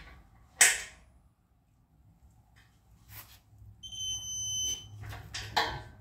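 Digital torque wrench beeping once, a steady high-pitched tone lasting about a second roughly four seconds in, the signal that the bolt has reached its set torque of 60 foot-pounds. A sharp metal clank just after the start and a few metal clicks near the end come from the wrench and socket on the bolts.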